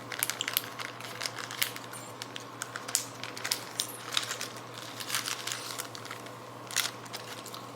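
Irregular small clicks, taps and crinkles of things being handled in the kitchen, a light crinkling like plastic packaging, with no steady sound behind them.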